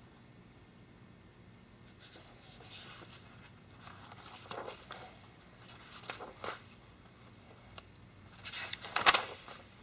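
Quiet small room with a few scattered rustles and light clicks of hands handling things, the loudest a sharp click about nine seconds in.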